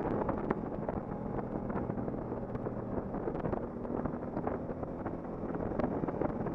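Motorcycle engine running steadily at road speed, with wind buffeting the on-bike camera's microphone and scattered small clicks.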